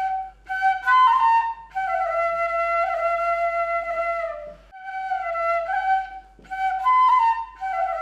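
Background music: a solo flute playing a slow melody in short phrases, with brief pauses between them.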